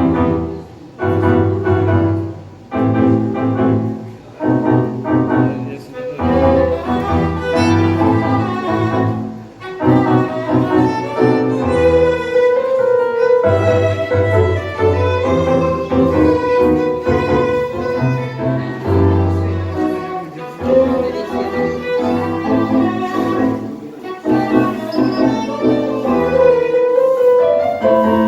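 Live tango music from a small ensemble: bowed strings carrying the melody over piano and double bass. It opens with short, strongly accented chords on the beat, and from about twelve seconds in a long held string melody sings above the accompaniment.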